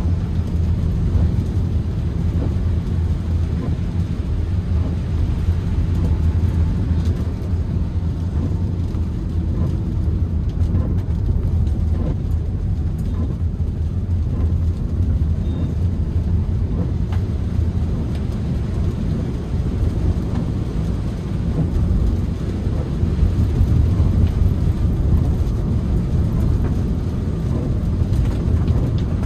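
Toyota Calya cabin on the move: a steady, low drone of engine and tyre noise on a wet road in light rain.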